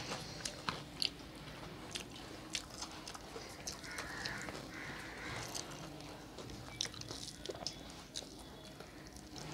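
A person chewing a mouthful of rice and cabbage-and-prawn curry, close to the microphone, with scattered soft smacks and clicks of the mouth.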